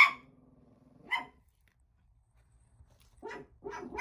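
Dog barking indoors: a sharp bark at the start, another about a second later, then a few softer barks near the end.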